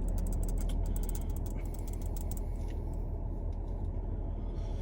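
Steady low rumble of a car cabin, with a run of small sharp clicks and crackles that is dense in the first half and thins out later.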